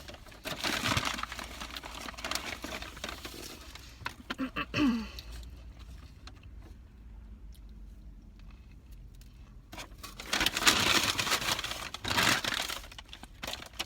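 Paper fast-food wrappers and bag rustling and crinkling as they are handled, in two spells: one in the first few seconds and a louder one about ten seconds in.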